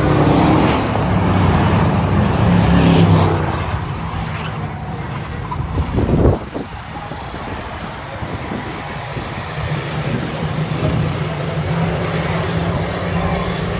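Race car engines of a pack of stacker cars running around an oval track, a steady drone rising and falling as the cars go by. About six seconds in a sharp, loud burst stands out, then the drone drops away and builds again toward the end.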